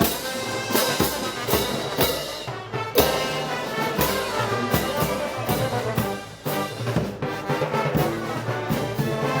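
Brass band playing Moros y Cristianos festival music: sustained brass chords with trombones and trumpets over regular drum strokes.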